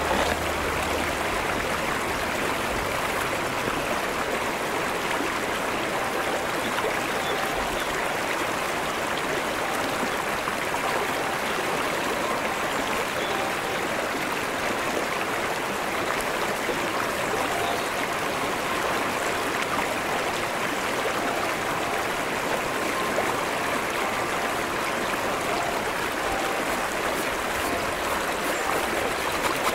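Shallow brook running over flat rock shelves: a steady, even rush of water.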